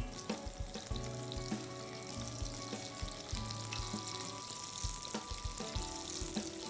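Small boiled potatoes sizzling as they shallow-fry in hot mustard oil in a pan, with scattered short clicks.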